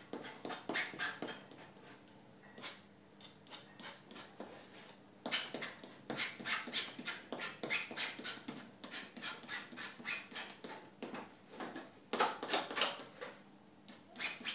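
Palette knife scraping and dabbing paint onto a stretched canvas in quick runs of short rasping strokes, with a pause of about three seconds after the first couple of seconds and a shorter one near the end.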